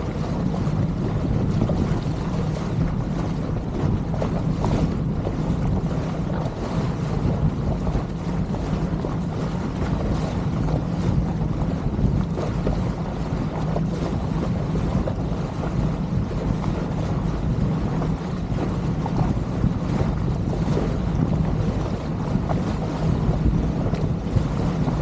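Motorboat engine running steadily under way, with wind buffeting the microphone and water rushing past the hull.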